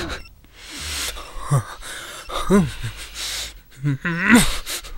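A man sobbing: gasping, breathy inhalations broken by short cries that fall in pitch. The loudest cry comes about four seconds in.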